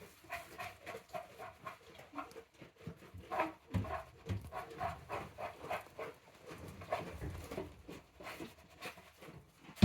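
Goats with newborn kids making a string of short, soft vocal sounds, several a second, with breathy, panting-like noises between them. A sharp knock comes right at the end.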